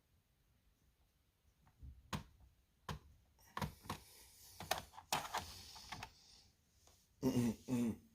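Scattered sharp clicks and taps of a screwdriver and hands working on a laptop's plastic case while it is opened to add RAM. A short murmur of a voice near the end.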